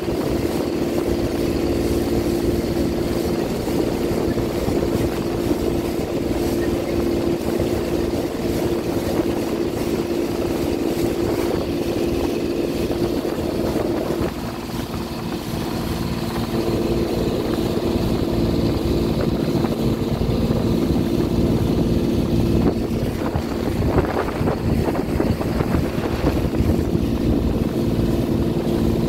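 Small open motorboat's engine running steadily at cruising speed, a constant hum over the rush of water along the hull.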